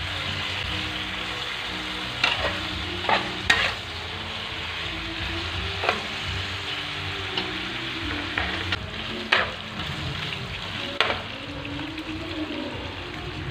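Pork strips and garlic sizzling steadily in a nonstick frying pan as they are stir-fried with a metal spatula and spoon, with a handful of sharp clinks and scrapes of the utensils against the pan.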